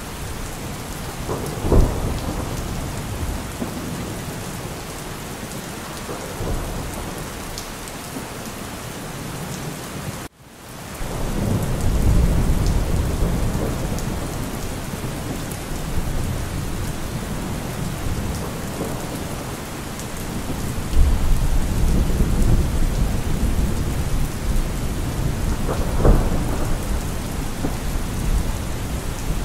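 Thunderstorm: steady rain under low rolling thunder, with louder peaks of thunder about two seconds in and again near the end. The sound drops out briefly about ten seconds in, then the rumbling swells back.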